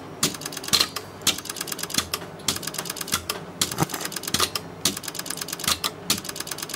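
Relays in a vacuum-tube CNC control cabinet clicking rapidly as its clock runs fast: several sharp clicks a second, with a louder click about every half-second.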